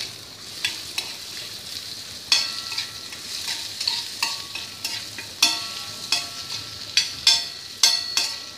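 Prawns with onion and tomato sizzling in an iron pan as a spatula stirs them. The spatula knocks and scrapes against the pan in repeated sharp clinks, several ringing briefly, over a steady frying hiss.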